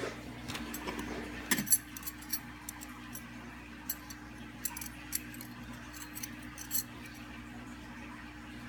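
Light metallic clicks and clinks of small screws and hand tools being handled, irregular and loudest about a second and a half in, over a steady low hum.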